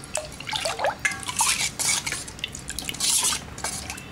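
Tamarind water with ground spice powder being stirred in a stainless steel pot, the liquid sloshing and splashing against the sides in about three swirling strokes, to mix out the lumps.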